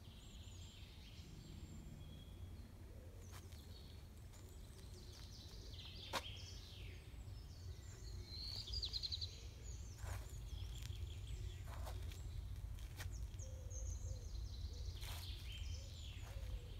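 Outdoor ambience: scattered bird chirps and calls over a steady low rumble, with a few soft scuffs and taps of shoes on concrete.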